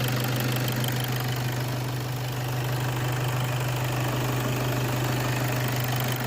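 EA288 2.0 TDI four-cylinder diesel engine idling steadily while it warms up with coolant circulating after a refill.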